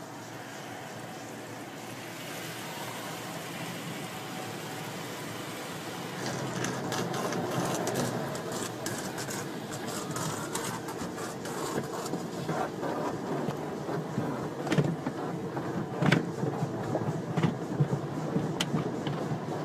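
Car wash running: a noisy rush of water jets and machinery that slowly grows louder, with scattered knocks and clicks from about six seconds in.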